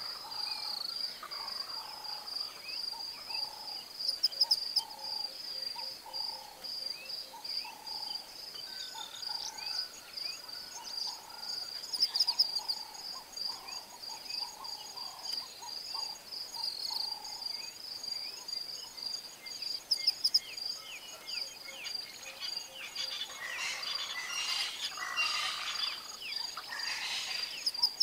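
Bushveld ambience: a steady, shrill pulsing insect trill with repeated short bird calls, a few sharp clicks about four, twelve and twenty seconds in, and a rougher burst of noise near the end.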